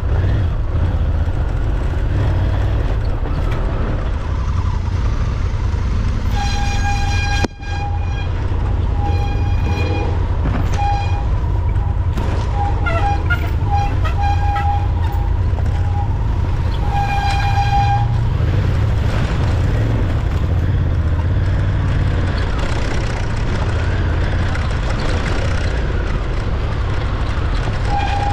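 Motorcycle horn tooting over the steady low rumble of a dirt-trail ride. The horn gives a long toot, then a string of short beeps, and a second long toot about ten seconds later.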